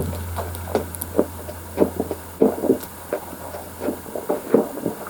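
A person chugging a fizzy soft drink straight from a bottle: a run of gulps and swallows, about two or three a second.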